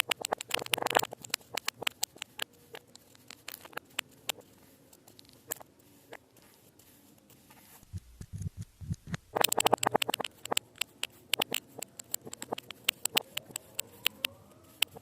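Kinetic sand being sliced with a blade: crisp crackling and crumbling as the packed sand breaks apart. The crackling comes in dense runs in the first second or so and again about ten seconds in, with scattered single clicks between them. A few soft, low thumps come just before the second run.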